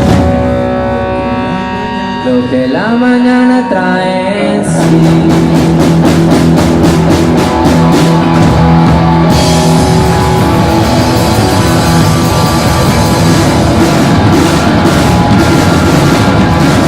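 Live rock band with two electric guitars, bass and drums. For the first few seconds held guitar notes ring out, one of them bent in pitch. Then, about five seconds in, the whole band comes in loud with steady drum and cymbal hits under distorted guitar chords.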